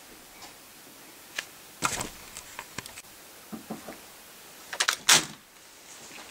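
Sharp metallic clacks and clicks of a Mosin-Nagant M91/30 rifle's bolt being worked: one clack about two seconds in, then a quick run of clacks a little after five seconds, with lighter clicks between.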